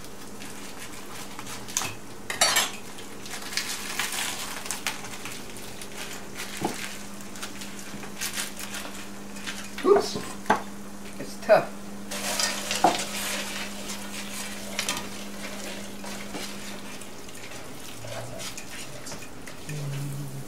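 Kitchen handling sounds: a plastic bag of frozen peas rustling and crinkling, several sharp clicks and clinks of metal, loudest in a cluster about halfway through, and a spoon stirring a simmering pan of sauce near the end.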